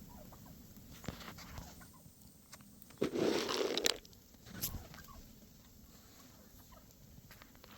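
Wild turkeys calling with faint, short clucks, with a louder rushing noise lasting about a second, starting about three seconds in.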